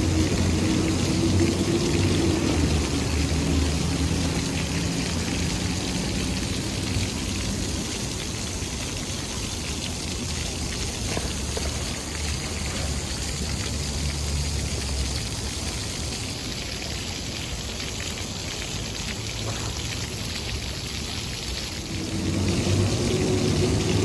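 A row of small ground-level fountain jets splashing steadily into a shallow pool, with a low hum of city traffic underneath that fades in and out and is loudest near the start and again near the end.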